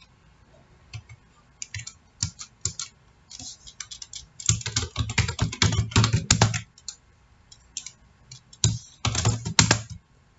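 Computer keyboard typing: scattered single key presses, then quick runs of keystrokes about four and a half seconds in and again about nine seconds in.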